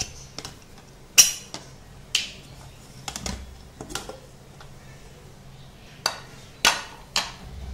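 Aluminium pressure cooker being opened with its pressure already down: the whistle weight lifted off and the lid worked free, giving a series of sharp metal clicks and clanks, the loudest about a second in.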